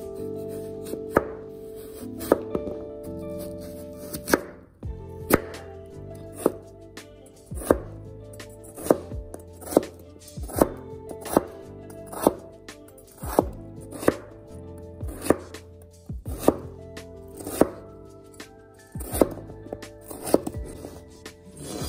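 Chef's knife slicing through a peeled raw potato and knocking on a plastic cutting board, a sharp chop about once a second.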